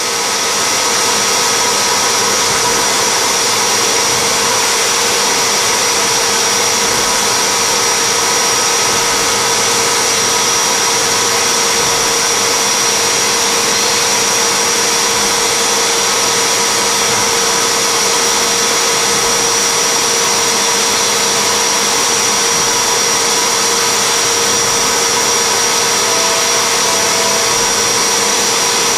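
CNC spindle at 6000 rpm engraving acrylic with an indexable carbide-insert engraving tool, under a jet of chilled air blown onto the cut. The sound is a loud, steady hiss with several held whining tones, unchanging throughout.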